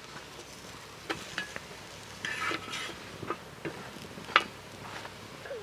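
Utensils clinking and scraping against a metal frying pan and dishes, a handful of separate knocks with the sharpest near the end, over a faint sizzle of fish frying in butter.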